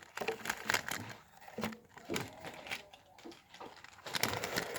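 Toy packaging and contents being handled: irregular crinkling and rustling of plastic and cardboard, with small clicks and taps.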